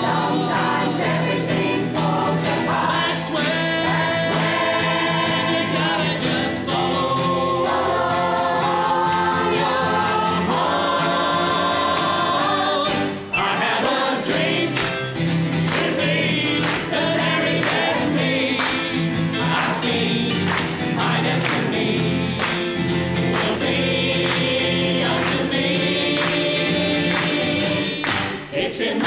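Mixed choir singing in harmony with keyboard accompaniment. From about halfway through, the singers clap in time.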